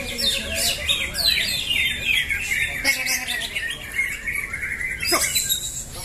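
Several caged green leafbirds (cucak hijau) singing against each other at once, a dense overlap of fast chattering and sweeping high notes, with one lower falling whistle about five seconds in.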